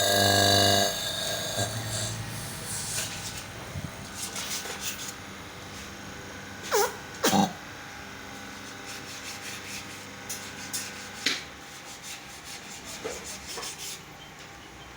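A machine's steady hum cuts off about a second in. It is followed by faint rubbing, scattered clicks and two short squeaks near the middle.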